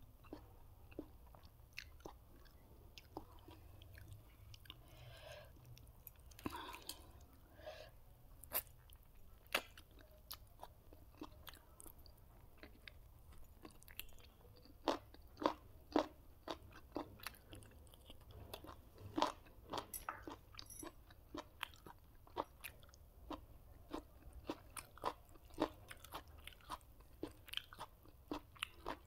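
Close-miked chewing of a chicken biryani meal: a run of wet mouth clicks and smacks with occasional crunches, sparse at first and coming thick and fast from about halfway.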